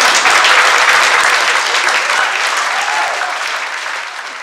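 Theatre audience applauding, the clapping fading steadily away.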